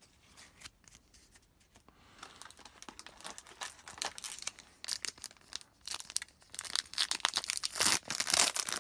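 Crinkly plastic wrapper of an Upper Deck hockey card pack being torn open and crumpled. It starts with a few faint crackles and grows denser and louder over the last few seconds.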